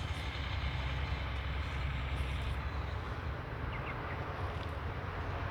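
Engine of a paddy-field machine running steadily with a low, even rumble.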